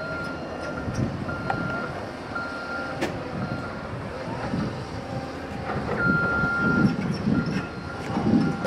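Reversing alarm on heavy construction equipment, beeping about once a second in a single high tone, over the uneven rumble of diesel engines working.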